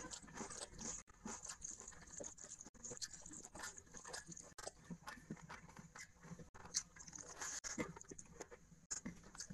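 Close-miked eating sounds: chewing and mouth noises in a rapid run of small clicks and smacks, with fingers mixing rice and curry on a plate.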